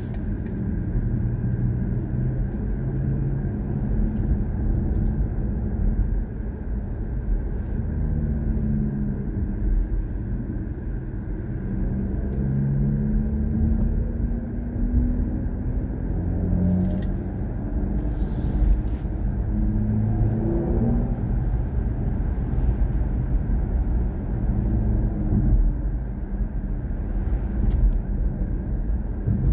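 BMW i4 M50 electric car driving, heard from inside the cabin: a steady low rumble of road and tyre noise. Through the middle a pitched tone from the car's electric drive rises as it picks up speed, then falls away about two thirds of the way in.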